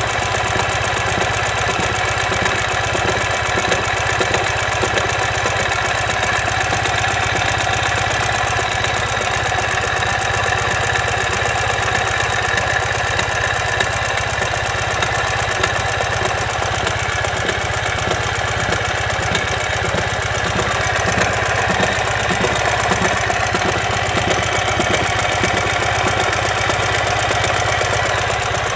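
2015 Ural Ranger's air-cooled flat-twin engine running steadily with an unusual mechanical noise, the sound of a collapsed front crankshaft bearing.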